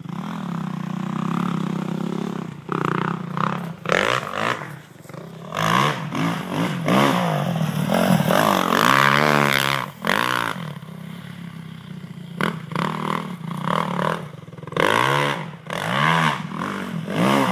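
Kawasaki 450 dirt bike's single-cylinder four-stroke engine revving hard and backing off over and over as it is ridden around a tight dirt track, its pitch rising and falling with each burst of throttle.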